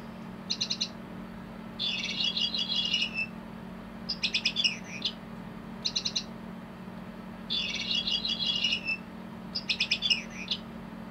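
Battery-powered sound module of a foam chirping cat ball, playing electronic bird chirps through its small speaker. It cycles through three different calls: a short trill, a longer warbling trill and a sweeping chirp. The set of three plays twice with short gaps between the calls.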